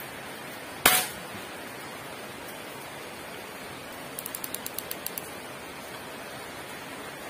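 A single air rifle shot, a sharp crack about a second in with a short ring after it. Around four seconds in, a quick run of about ten light ticks.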